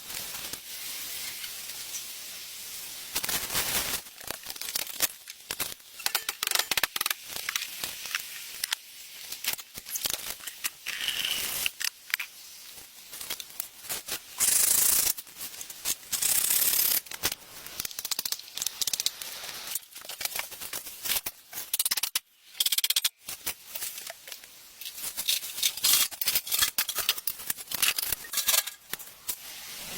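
Hand work on materials: irregular crisp clicks, snips and rustling scrapes, with a few longer hissing scrapes around the middle.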